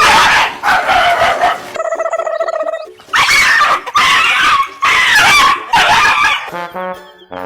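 A dog vocalizing loudly in a run of long calls.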